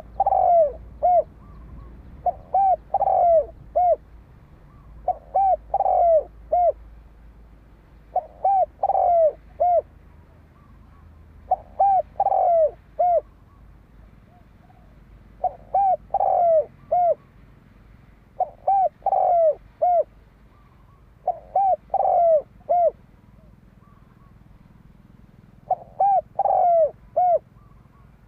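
Spotted dove cooing: a short phrase of several quick coos, repeated nine times a few seconds apart. This is the male's challenge song, used to stir up a decoy bird.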